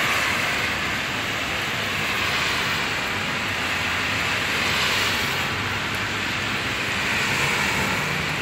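Steady hiss of heavy rain falling on wet pavement and parked cars, with a faint low hum of passing traffic underneath.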